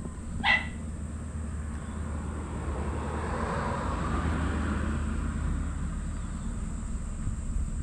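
A passing vehicle: its noise swells over a few seconds and then fades, over a steady low hum. A short, sharp high chirp comes about half a second in.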